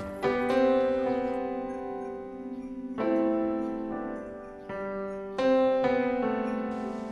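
Slow background piano music: a new chord struck about every two to three seconds, each ringing on and slowly fading.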